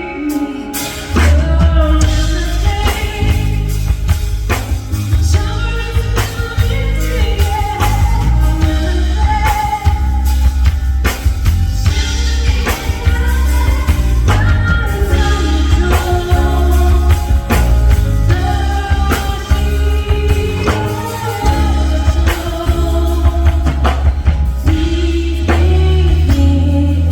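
A song with singing over a steady drum beat and heavy bass.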